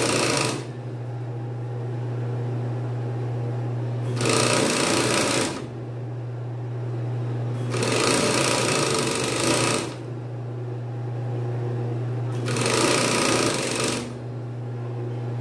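Industrial coverstitch machine (galoneira) sewing a hem in short runs: stitching for a second or two at a time, about every four seconds, with the motor's steady hum carrying on between runs.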